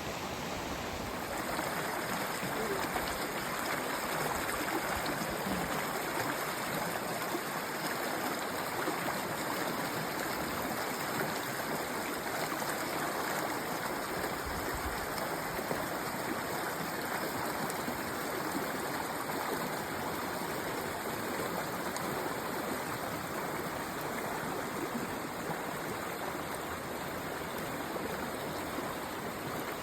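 Stream water flowing: a steady, even rush and babble of running water.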